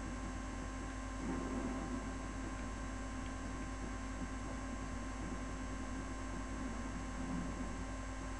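Steady electrical mains hum with a background hiss.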